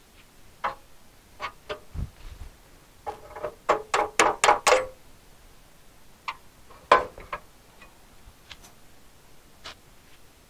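Scattered metallic clinks and taps of steel repair plates being handled and set into place on a car's steel frame rail. A quick run of sharper, ringing knocks comes about three to five seconds in, and a few more about seven seconds in.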